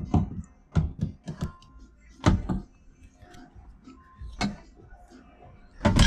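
A handful of short knocks and thunks, about six, from hands and gear being handled against the steering wheel and car interior, the loudest about two seconds in and at the very end.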